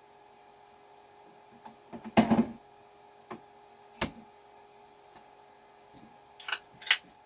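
Knocks and clatter of things being handled on a table, loudest about two seconds in. Two sharp clicks follow, then two short hissy bursts near the end.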